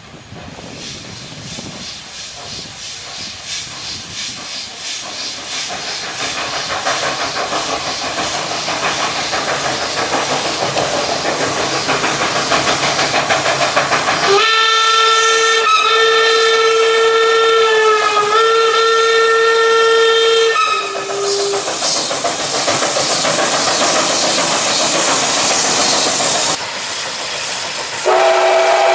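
Train sound effect: a train approaching with rhythmic wheel clatter that grows steadily louder, then a long train whistle in two blasts about halfway through, followed by a short toot. After that comes a few seconds of hissing, and another whistle blast starts near the end.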